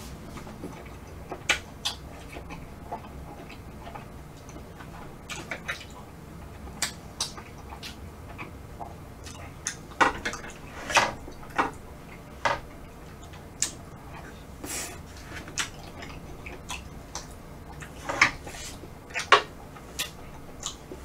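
Close-up eating sounds: a wooden spoon scooping soft melted ice cream off a griddle plate, with scattered wet mouth smacks and clicks as it is eaten, bunched in two spells about halfway through and near the end.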